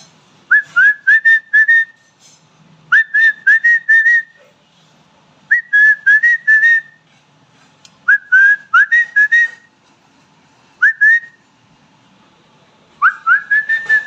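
Indian ringneck parakeet calling in loud, shrill rising whistles, given in quick runs of four or five notes with short pauses between runs; one call stands alone past the middle, and a longer run comes near the end.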